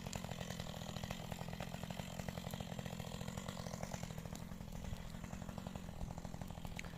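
Two-stroke chainsaw running steadily some way off, cutting into big logs.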